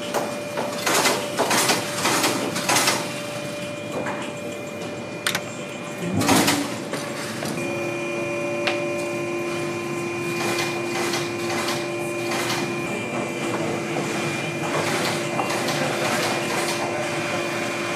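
Hand-tool work on boot parts: irregular small clicks and scrapes from a pick worked along a worn sole's stitched welt. After a cut, a knife scrapes and cuts small black pieces against a stone countertop, over a steady background hum.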